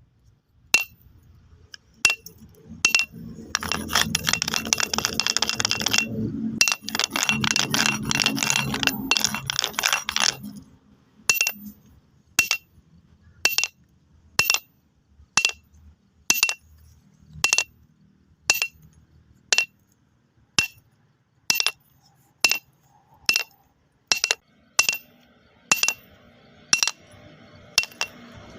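Stones knocking together: a few single clacks, then several seconds of stones rattling and clattering against one another, then single sharp stone-on-stone clicks about once a second.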